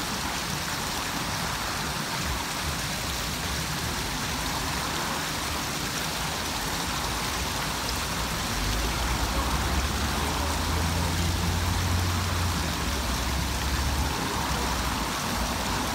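Fountain water jets splashing steadily onto a bronze statue and into its pool, a constant rushing hiss. A low rumble swells in past the middle for several seconds, then fades.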